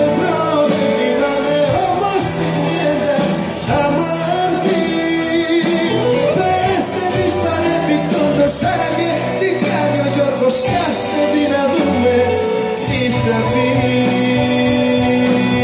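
A Greek popular song performed live by a band, with a male singer's voice over the instruments. The music plays loud and unbroken throughout.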